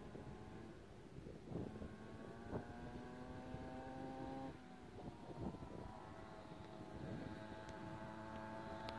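Faint 49cc two-stroke pocket ATV engine revving, its whine rising in pitch as it accelerates, then breaking off about four and a half seconds in.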